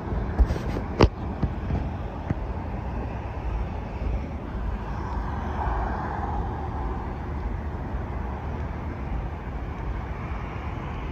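Roadside outdoor noise: a low wind rumble on the microphone, with a vehicle passing, swelling and fading around the middle. Two sharp clicks about a second in.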